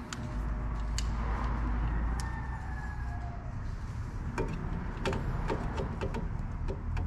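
A low steady rumble for the first few seconds, then a run of light clicks and knocks as a work light is handled and set into the wheel arch on the front suspension strut.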